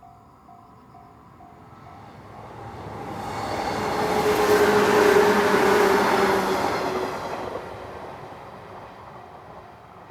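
113 series electric multiple unit passing a level crossing: it swells to its loudest about five seconds in, then fades as it moves away. A Japanese level-crossing alarm bell dings about twice a second throughout, masked while the train is loudest.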